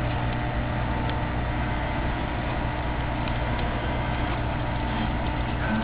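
A steady low mechanical hum over an even rumbling noise, unchanging throughout, with a few faint brief ticks.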